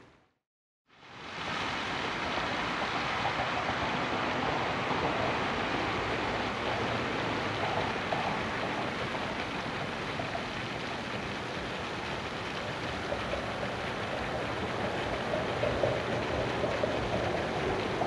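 Steady splashing hiss of a pond's aerating fountain spraying water, fading in after about a second of silence.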